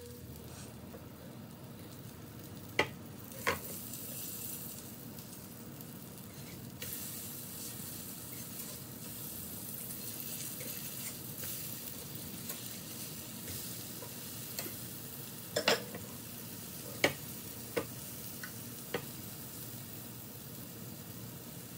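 Cornmeal-coated green tomato slices frying in hot bacon fat with a steady sizzle. A few sharp clicks sound over it, twice about three seconds in and several more near the end.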